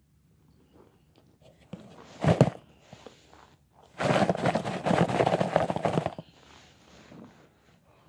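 Dry white chalky chunks crunching and scraping against each other in their container as they are handled: one short loud crunch about two seconds in, then a longer rattling, scraping crunch from about four to six seconds.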